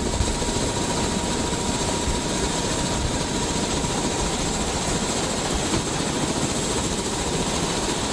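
Helicopter engine and rotor running steadily: a continuous dense rushing noise with a thin high whine over it.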